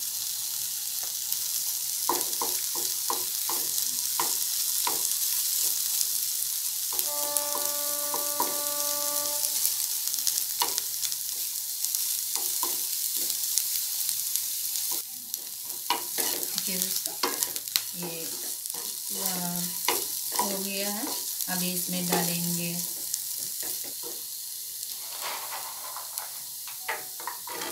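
Chopped vegetables sizzling in hot oil in a non-stick kadai, with a wooden spatula stirring and scraping the pan in frequent short strokes. About seven seconds in, a steady tone sounds for a couple of seconds.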